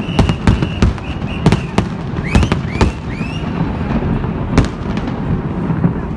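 Fireworks display: a rapid, irregular series of sharp bangs from bursting shells, the loudest about four and a half seconds in. A few short rising whistles sound about two to three seconds in.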